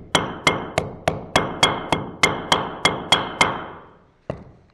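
Hammer tapping a wheel seal back into the rear wheel hub of a Honda VTR1000: a steady run of about a dozen sharp, slightly ringing metallic blows at about three a second, then one last single tap near the end.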